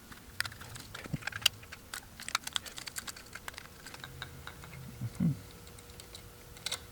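Irregular small metallic clicks and taps, several a second, of a screwdriver backing out the terminal screws on a light switch and the switch being handled.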